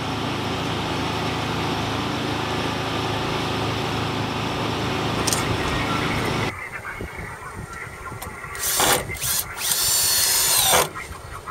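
Steady traffic-like background noise, then a cordless drill driving screws into wood in short bursts, its motor whine bending up and down near the end.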